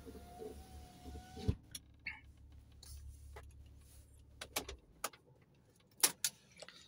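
Inside a BMW car: a power window motor whines and stops with a knock about a second and a half in, over a low hum that cuts out near five seconds in. A few sharp clicks follow near the end.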